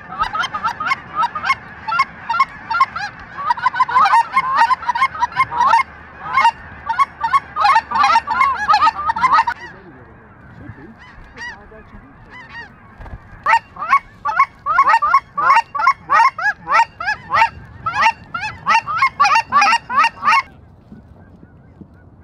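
Goose honking: many rapid, overlapping high honks in two loud bouts, each cutting off abruptly, the first about ten seconds in and the second near the end, with fainter honking in the gap.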